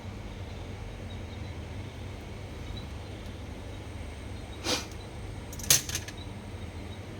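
Two short clicks about a second apart, the second one louder with a quick follow-up tick, from small parts or tools being handled while a Daiwa Steez SV TW baitcasting reel is taken apart. A steady low hum runs underneath.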